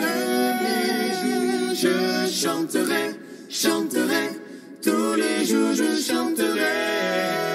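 Voices singing a cappella in harmony, holding long notes, with a brief quieter stretch in the middle.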